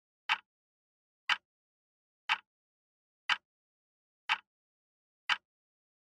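Countdown timer's tick sound effect: a short, sharp tick once every second, six in all, with complete silence between ticks.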